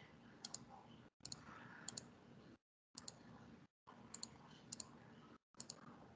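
Faint computer mouse clicks, mostly in quick pairs about once a second, over a faint hiss that cuts out to dead silence several times.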